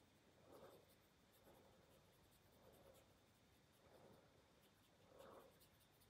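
Near silence: room tone, with faint soft puffs about once a second.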